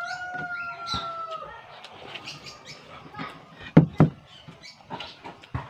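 A rooster crowing: the drawn-out end of the crow, falling slightly in pitch, stops about a second and a half in. Scattered small clicks follow, with two louder low thumps just before the four-second mark.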